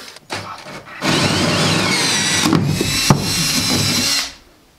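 Cordless drill with a hole saw cutting a round hole through an Advantech engineered-wood subfloor panel. It starts about a second in, cuts steadily with a whining motor and one sharp knock, then stops shortly before the end.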